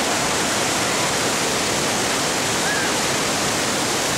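Steady rushing of a waterfall pouring over a rock ledge into churning whitewater.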